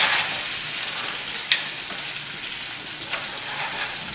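Flour-dredged chicken breasts and chopped basil sautéing in a frying pan: a steady frying sizzle that eases slightly after the start, with a sharp click about a second and a half in and a fainter one about three seconds in.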